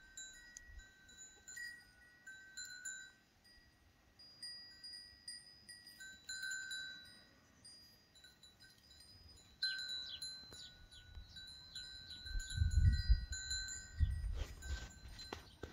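Small bells ringing on and off at a few fixed high pitches, a light tinkling that comes and goes. A few short chirps come about ten seconds in, and a low rumble near the end is the loudest sound.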